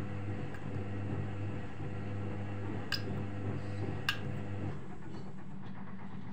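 Arçelik 3320 SA washing machine spinning, a steady motor hum whose lowest part cuts off about three quarters of the way through, with a couple of sharp clicks shortly before.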